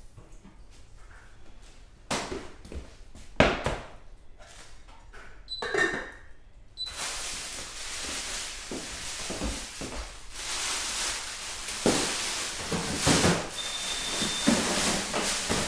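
Kitchen handling sounds: a string of knocks and clatter with a brief squeak, like cupboard doors and drawers. Then, from about seven seconds in, a steady hiss with further knocks over it.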